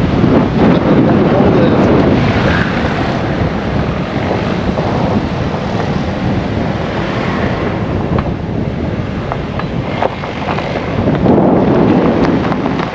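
Loud wind buffeting the microphone of a moving vehicle: a continuous rumbling rush that swells near the start and again near the end.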